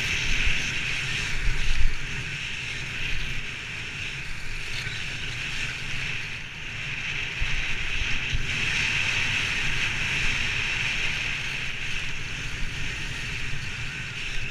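Skis sliding and scraping over tracked, chopped-up snow during a downhill run, a steady hiss that swells and eases, with a low rumble of wind on the microphone.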